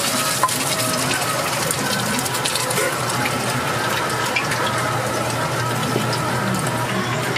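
Pancake dough deep-frying in a wok of hot oil: a steady sizzle dotted with small crackles.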